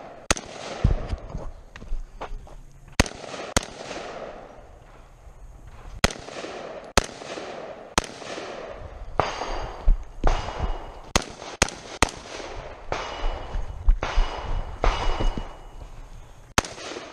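Shots from an AR-style rifle fired in a timed stage: about a dozen sharp cracks at irregular intervals, some in quick pairs, each followed by a short echo.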